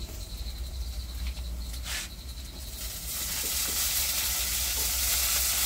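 Frying pan of onions in hot oil over a wood fire: a single tap about two seconds in, then a loud, steady sizzle that starts suddenly about three seconds in as tomatoes go into the hot pan.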